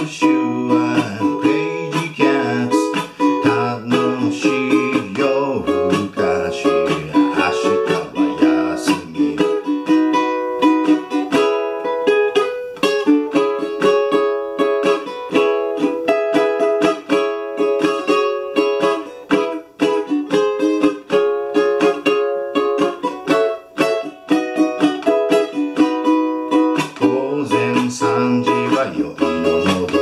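Ukulele strummed in a steady rhythm, playing a pop song's chords. By the player's own account it is slightly out of tune. A low voice joins the strumming for the first ten seconds or so and again near the end.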